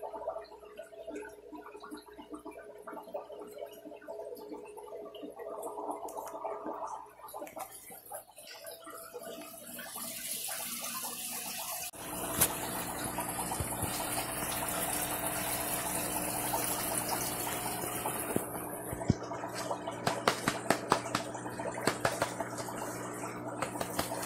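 Aquarium water gurgling and splashing over a steady pump hum, much louder from about halfway in. Many sharp clicks and scratches come near the end.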